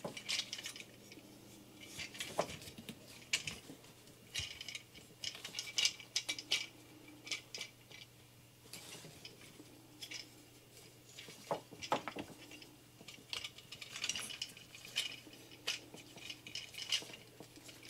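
Plastic parts of a Transformers action figure clicking and clacking as it is transformed by hand: scattered small clicks from joints being pivoted and panels snapped shut.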